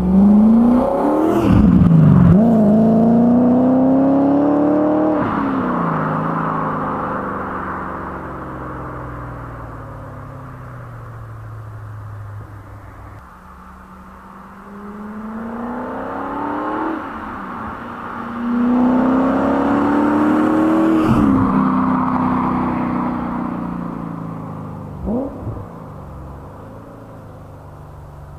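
BMW E30 with a swapped M60B40 4.0-litre V8 and a custom stainless exhaust (twin 63.5 mm pipes, X-pipe, Powersprint silencers) accelerating hard. The exhaust note climbs and drops sharply at each gear change, then fades away. This happens twice: at the start, and again from about 15 seconds in.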